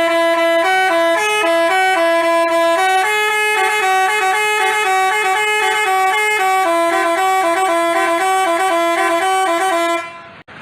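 Basuri telolet bus horn playing a quick melody, its notes stepping up and down several times a second. It cuts off abruptly near the end.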